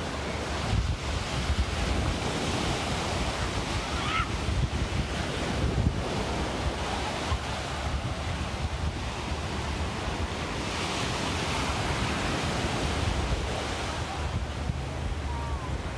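Ocean surf: waves breaking and washing in, with gusts of wind rumbling on the microphone.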